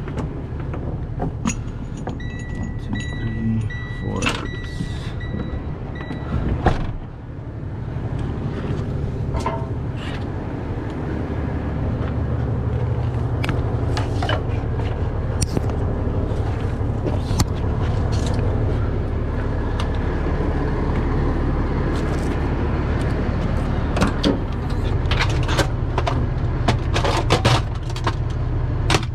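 Heavy diesel truck engine idling steadily, with tow chain clanking and metal tools clicking and knocking, and a steady high electronic tone for about four seconds starting about two seconds in.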